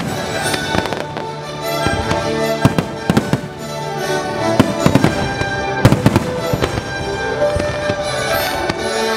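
Fireworks display: aerial shells bursting in clusters of sharp bangs over steady show music with long held notes.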